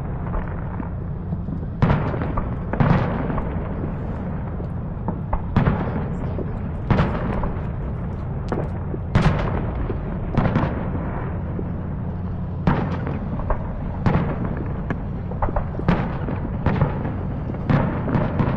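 Aerial fireworks bursting, about a dozen booms at irregular intervals of one to two seconds, each fading off quickly, over a steady low rumble.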